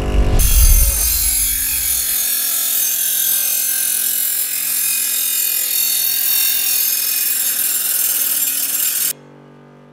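ROK 150mm 240V bench grinder running with a workpiece held against its grinding wheel: a harsh, steady grinding hiss over the motor's hum. The grinding starts just after the beginning and cuts off suddenly about nine seconds in, leaving the motor humming.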